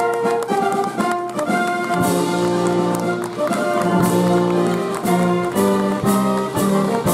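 Brass band playing a celebratory tune, held brass notes moving through a melody over a regular beat.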